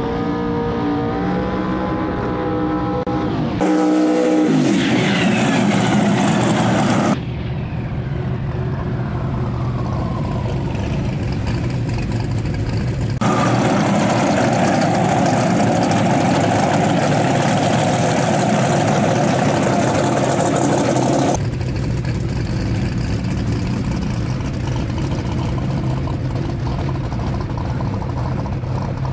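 Twin-turbo big-block Ford V8 of a Fox-body Mustang drag car revving hard and spinning its rear tyres in a burnout, with pitch glides both rising and falling. The sound changes abruptly several times as the footage cuts between shots.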